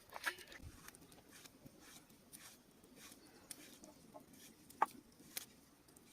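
Chicken clucking faintly, a few short clucks among scattered small clicks, the clearest about three-quarters of the way through.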